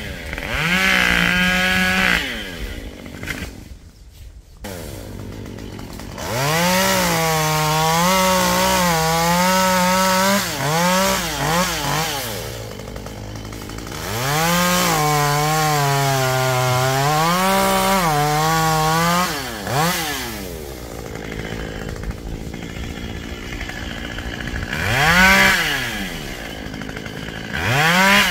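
Small two-stroke chainsaw cutting tree limbs. It revs up for two long cuts of several seconds each, its pitch wavering under load, and drops back to a low run between them. There are shorter revs at the start and twice near the end.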